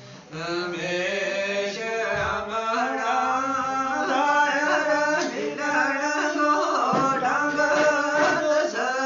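A man singing unaccompanied Gojri folk verse (baits) in long, drawn-out melodic lines, taking up again about a third of a second in after a brief pause.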